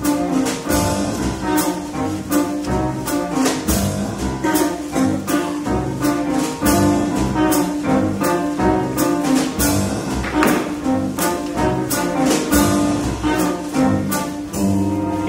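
Live pit band of a stage musical playing a jazzy instrumental, with sustained notes from winds and strings over walking bass and a steady drum beat.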